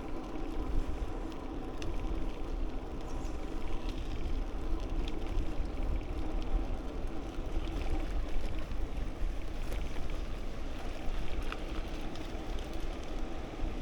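Bicycle riding noise: wind buffeting the microphone with a low rumble, steady tyre hum on the path, and scattered small ticks.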